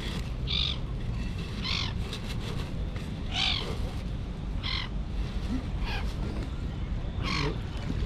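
Bird giving short, harsh calls, six in a row about every second and a bit.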